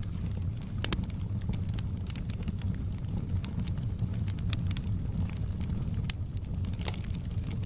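Wood fire burning in a fireplace: a steady low rumble of flames with sharp crackles and pops at irregular intervals.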